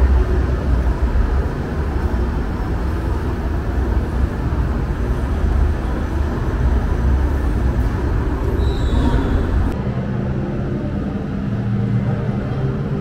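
Hogwarts Express ride train running on its track: a steady low rumble. About ten seconds in, the sound changes suddenly to a steadier, lower hum.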